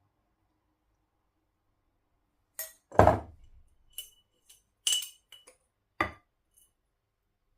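Kitchenware being handled: a series of short clinks and knocks of utensils or dishes, the loudest a heavier knock about three seconds in, after a silent start.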